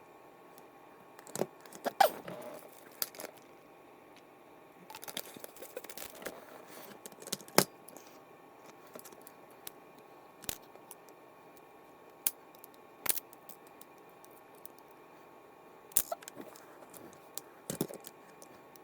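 Small metal parts and tools clicking and clinking as a fishing reel is taken apart by hand. There are irregular sharp ticks and short rattles, with a busier run of small clatters about five seconds in.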